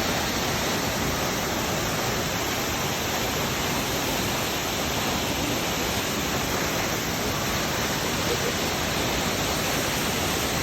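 Waterfall crashing steadily, a constant full rush of falling water.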